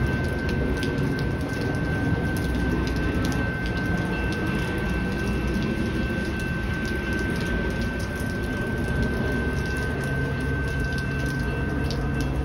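Railway level crossing bell (General Signal Z-bell) ringing steadily as a single high tone while the crossing is activated, over a low rumbling noise.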